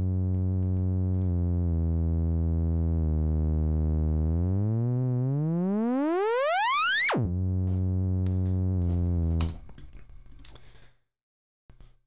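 Pitched synth riser from Logic Pro X's Alchemy with sawtooth oscillators: a low held note that brightens in small steps as the filter cutoff is automated open, then glides steeply up in pitch for about three seconds. It drops back suddenly to the low note, which holds about two seconds more and stops, followed by a few faint clicks.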